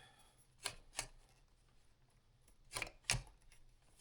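Hard plastic vacuum parts clicking and knocking as they are handled and pushed together: two light knocks about a second in and two more near the end.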